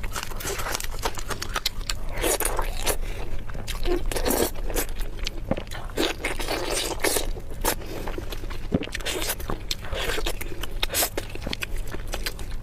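Close-miked eating: chewing and biting food, with many irregular wet mouth clicks and crunches.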